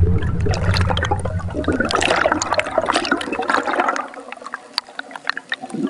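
Water bubbling and gurgling with many small pops and drips, thinning out to scattered drips about four seconds in.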